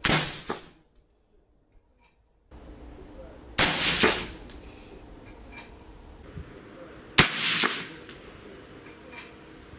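Three suppressed rifle shots, about three and a half seconds apart, from an AR-15 in .223 Rem fitted with a Steel Horde QD-T titanium suppressor. Each shot is followed about half a second later by a second, weaker crack.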